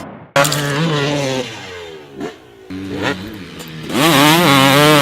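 Dirt bike engine revving, starting suddenly and blipped up several times, then held at higher revs near the end.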